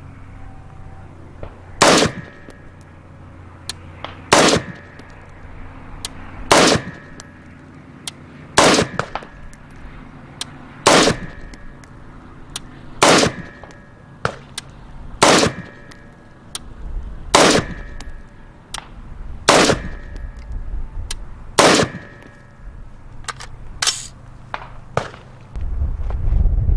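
AR-15 rifle firing 5.56 NATO rounds semi-automatically, about eleven single shots roughly two seconds apart. A low rumble comes up near the end.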